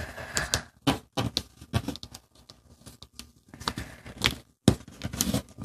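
Sheet of origami paper being folded and creased by hand, with a creasing tool pressed and drawn along the folds: irregular crinkling rustles and short scrapes.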